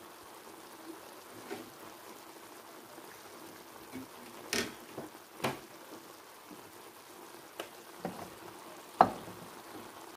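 Food sizzling softly in a frying pan of stir-fried chicken liver, gizzards and broccoli. Several sharp knocks against the pan stand out, the loudest near the end.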